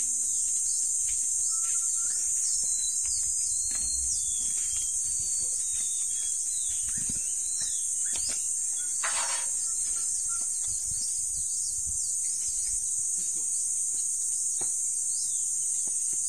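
A steady, high-pitched chorus of insects, crickets or cicadas, with a few faint short chirps and light clicks.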